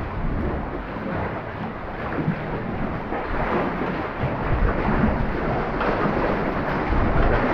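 Sea water surging and sloshing inside a rocky sea tunnel, a steady wash with a deep rumble that grows louder in the second half, with water dripping from the tunnel roof.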